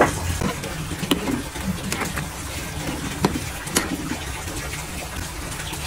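Metal ladle stirring chicken and tamarind soup in a metal pot, with a few sharp clinks and scrapes of the ladle against the pot over a steady background noise.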